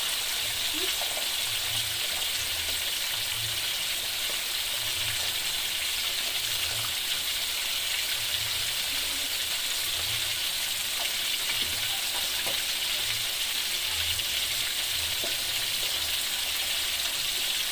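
Whole catfish deep-frying in a wok of hot oil: a steady sizzle from the oil bubbling around the fish.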